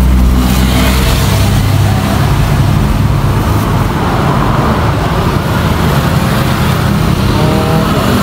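Steady low rumble of motor vehicle engine and road noise.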